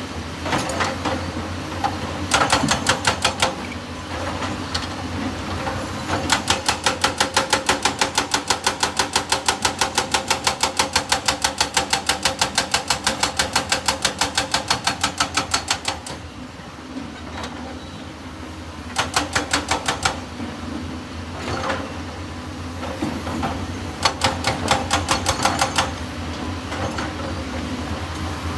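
Excavator engine running steadily, with several bursts of rapid, evenly spaced metallic clattering, about four to five knocks a second; the longest burst lasts about ten seconds.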